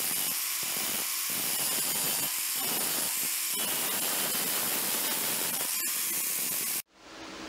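Angle grinder's abrasive disc grinding a stainless steel blade, a loud steady grinding that stops abruptly near the end.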